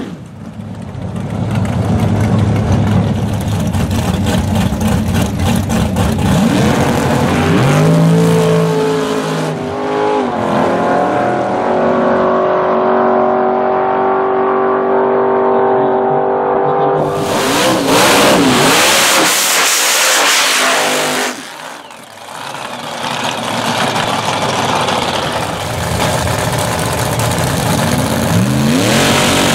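Drag racing cars' V8 engines at a drag strip. One engine revs and pulls away down the strip, its pitch rising and falling as it fades over several seconds. Then comes a loud stretch of hard-running engine noise, and after a short break another car's engine runs with revs at the start line.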